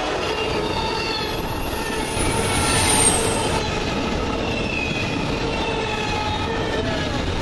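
Freight train of double-stack container well cars rolling past close by, a steady rumble of wheels on rail with thin squealing tones from the wheels.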